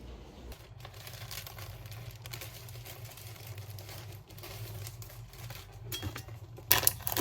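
Small objects being handled, with a soft rustling and ticking that turns into sharper, louder crinkly clicks near the end, like plastic packaging being handled.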